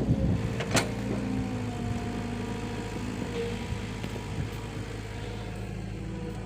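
Excavator engine running steadily, with a sharp click just under a second in.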